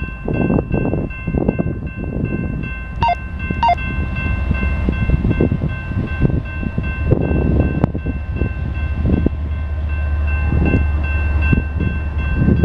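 Approaching CSX diesel freight train: a low locomotive rumble builds from about four seconds in and is steady and strong near the end, under a steady high ringing tone and irregular low buffeting noise.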